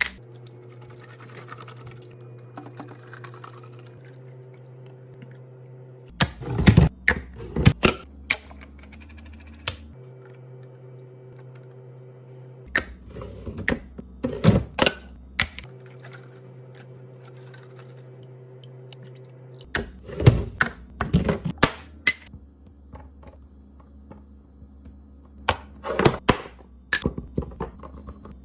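Restocking a mini fridge with drinks and packaged snacks: several bursts of quick clicks, taps and knocks as items are set onto the shelves and into bins, with a steady low hum between them.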